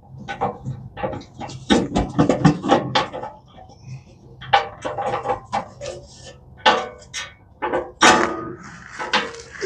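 Irregular clicks, knocks and clanks of hand tools being worked against metal, in short scattered bursts, from a struggle to loosen an oil filter with a tool that won't grip properly.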